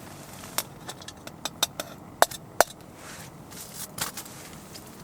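Irregular sharp clicks and taps from handling cooking gear while preparing a stew, about a dozen in all, the two loudest a little past two seconds in.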